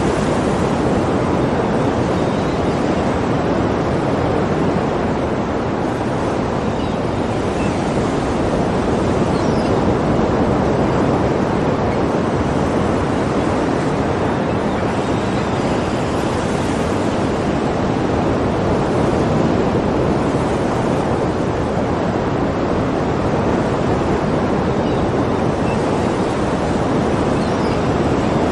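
Sea surf: a steady wash of waves with only slight swells in level and no distinct single breakers.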